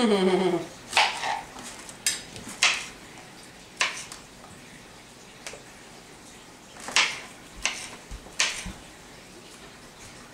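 Kitchen knives cutting zucchini and red bell pepper on plastic cutting boards: a series of short, sharp knocks at irregular intervals, thinning out mid-way and picking up again near the end.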